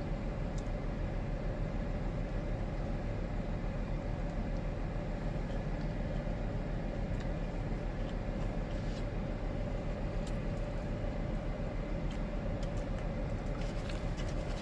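Steady low background rumble with a faint constant hum, and a few faint clicks scattered through it.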